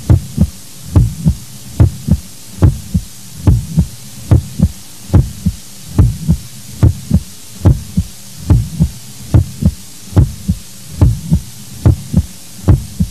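Heartbeat sound effect: steady paired lub-dub thumps, a little more than one beat a second, deep and even.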